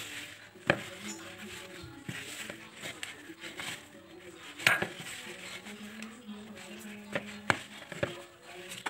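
Hands kneading soft cilok dough of tapioca and wheat flour in a plastic bowl, with several sharp knocks against the bowl, the loudest about halfway through. Faint background music plays underneath.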